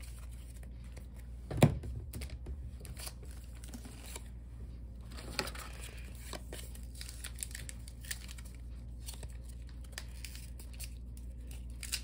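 Foil Pokémon booster pack wrapper crinkling and tearing open, then the cards inside being handled, with scattered small clicks and rustles. One sharp thump about a second and a half in is the loudest sound.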